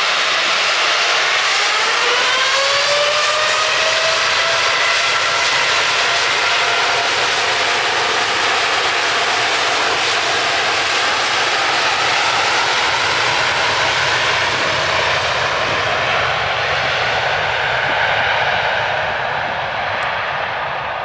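Boeing 787-8 Dreamliner's twin turbofan engines spooling up to takeoff power, a whine rising in pitch over the first few seconds, then running steadily at full thrust as the airliner accelerates down the runway. The sound dies away a little near the end as it pulls away.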